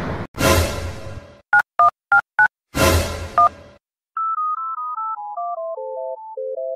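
Two loud noisy bursts, with four quick two-tone phone keypad (DTMF) dialing beeps between them and one more beep after the second. After a short silence, about four seconds in, a simple electronic caller-tune melody of single stepping notes starts playing as the call rings out.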